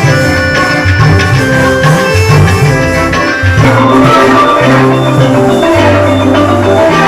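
Music with drums and a bass line playing in a steady rhythm; the sound thickens about three and a half seconds in.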